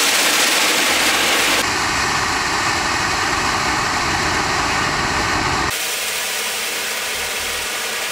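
Homemade chlorate-propellant solid rocket motor burning: a loud, steady rushing hiss of exhaust. The central channel cored through the fuel makes it burn fast enough to give thrust. The sound changes tone about a second and a half in and drops somewhat in level near six seconds in.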